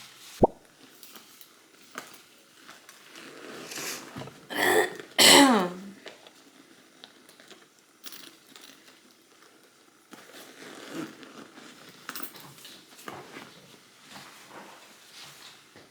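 A sharp tap near the start. About five seconds in, a person with a cold lets out two loud throaty bursts, the second falling in pitch. Soft crinkling and rustling runs through the rest.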